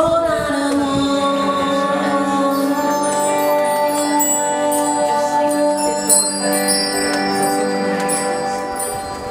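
Live instrumental music: an electric guitar's notes ring out from a chord struck at the start, and bell-like chimes shimmer over them from about three seconds in.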